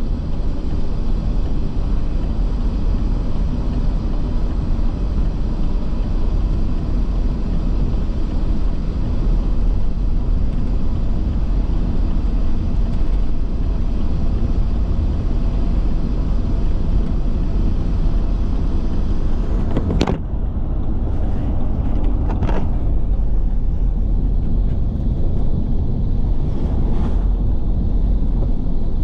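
Steady road and engine rumble heard inside a moving car. About two-thirds of the way through there is one sharp knock, followed by two fainter knocks a few seconds apart.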